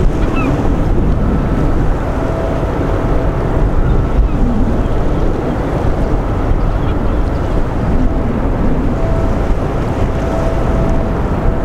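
Steady low rumble of the passing container ship Maersk Kansas mixed with wind buffeting the microphone, with a faint steady hum that comes and goes.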